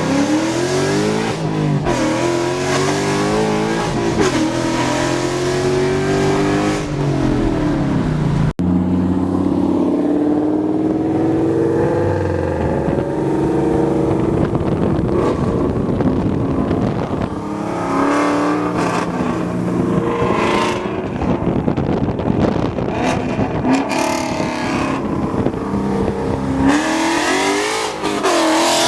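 S550 Ford Mustang with long-tube headers and a straight-pipe exhaust with no mufflers, running loud while driven. The engine note rises and falls in pitch as it accelerates and eases off, with an abrupt break about eight seconds in.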